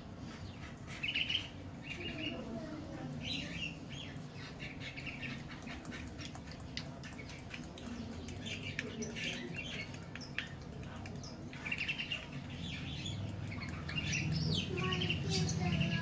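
Young lovebird chirping over and over in short calls while it is fed from a syringe.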